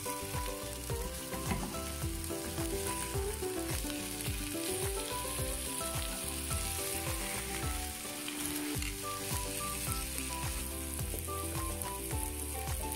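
Salmon steaks sizzling steadily as they fry in a nonstick pan, with metal tongs turning them.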